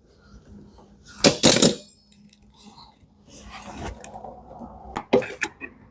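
Hand tools and metal parts being handled during a dryer repair: separate clinks and knocks, the loudest cluster about a second and a half in, more near the end.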